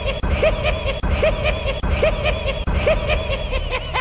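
Intro music: a short loop over heavy bass, repeating about every 0.8 seconds.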